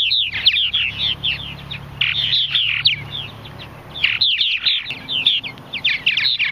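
Purple martins chirping and chattering: quick runs of short chirps, thinning briefly around three seconds in and picking up again.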